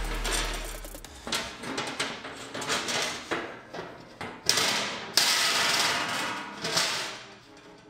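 Aluminium diamond tread plate being handled and fitted into a tubular steel chassis: a run of clanks and knocks, then longer metallic scraping sounds in the second half as the sheet is worked into place.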